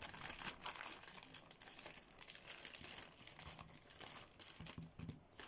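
Clear plastic packaging bag crinkling faintly as small cardboard boxes of gel polish are pulled out of it by hand.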